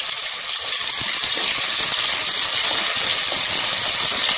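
Chopped onion frying in hot oil with popped mustard seeds in a pressure cooker: a steady sizzling hiss.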